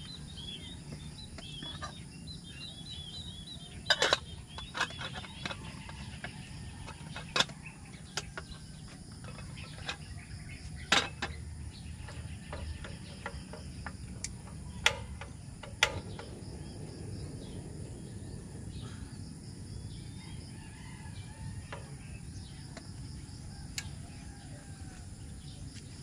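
Several sharp clinks and knocks of metal camp cookware being handled and set on a camping stove on a table, with small birds chirping quickly in the first few seconds and a steady low hum underneath.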